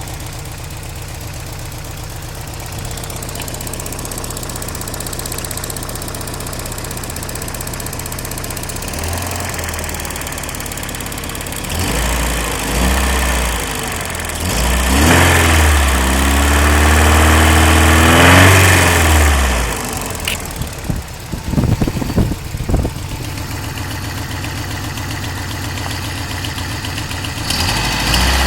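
Toyota 22RE 2.4-litre four-cylinder engine idling with a marble-like rattle. About halfway through it is revved up and held for several seconds, blipped a few times, then left to settle back to idle.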